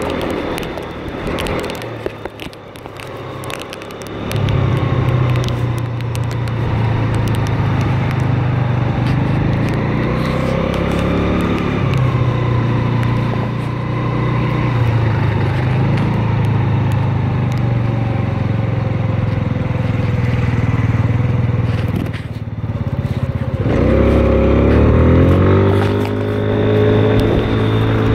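Motor scooter's engine running while riding in traffic, quieter for the first few seconds and then picking up steadily from about four seconds in. Near the end it rises in pitch as it speeds up.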